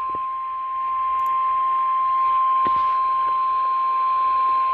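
Emergency Alert System attention tone on a radio: one steady, unbroken beep near 1 kHz announcing a tornado warning broadcast on WZJZ, with a small click about two and a half seconds in.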